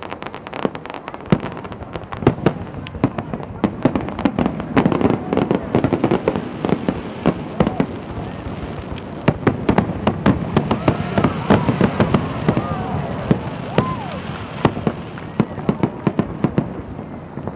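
Fireworks display: a dense, continuous run of bangs and crackling reports, several a second, with occasional whistling glides in the second half.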